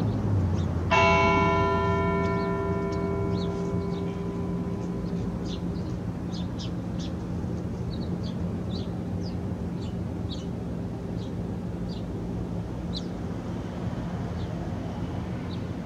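A bell struck once as a memorial toll, about a second in. Its ring fades slowly over several seconds and a low hum lingers to the end.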